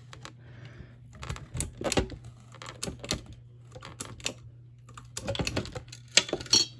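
Irregular clicks and clatter of a disassembled ceiling fan's parts being handled, blades and small hardware knocking together, loudest about two seconds in and in a busy flurry near the end. A steady low hum runs underneath.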